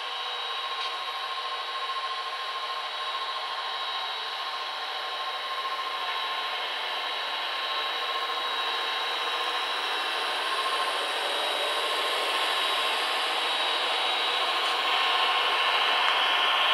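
HO scale model diesel locomotives running on track: a steady whirr of motors and wheels on the rails with a faint hum, growing gradually louder as the train comes closer.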